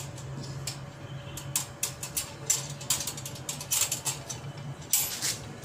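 Metal wire cage door and latch rattling and clicking as a hand works the door open, in irregular clicks that grow busier after about a second and a half, with the loudest clatter near the end.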